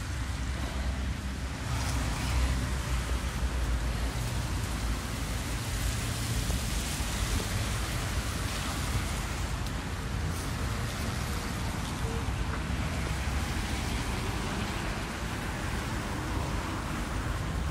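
Steady outdoor street ambience picked up by a phone microphone on a walk in the snow: an even rushing noise over a low rumble, with no distinct events standing out.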